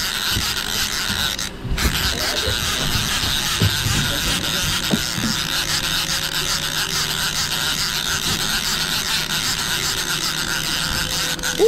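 Large conventional fishing reel being cranked steadily, its gears running on without a stop except for a brief break a little under two seconds in, as a hooked albacore tuna is reeled in.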